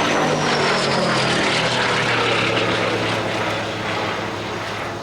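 Piston-engined vintage biplane flying past low, its propeller and engine note dropping in pitch as it goes by and easing slightly near the end.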